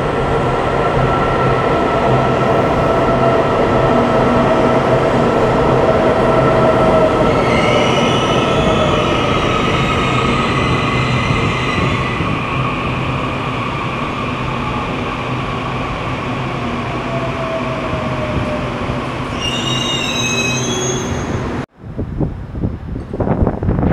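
Taiwan Railways EMU800 electric multiple unit moving along the platform track: steady running rumble with the electric traction motors' whine slowly falling in pitch. High wheel squeal comes in twice, for several seconds about seven seconds in and briefly near the end, and the sound cuts off abruptly shortly before the end.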